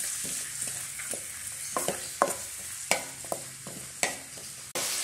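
Sliced cabbage and onion frying in coconut oil in a wok (cheenachatti), sizzling steadily as they are stirred. A stirring utensil knocks against the pan about five times in the second half.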